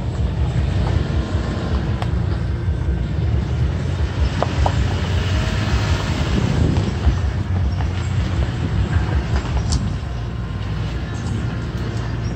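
Toyota Tacoma pickup driving over a rough dirt trail: a steady low rumble of engine and tyres, with the body and gear rattling and knocking now and then over the bumps.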